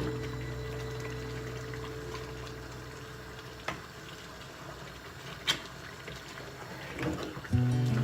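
A pot of soup bubbling, with a few sharp clicks. Background music fades out at the start and comes back near the end.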